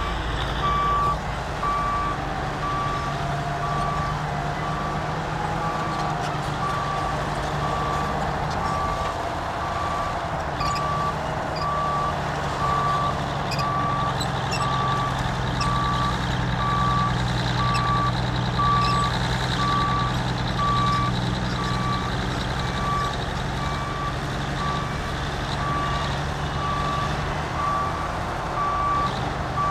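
A heavy diesel earthmoving machine running, with its reversing alarm beeping steadily about once a second.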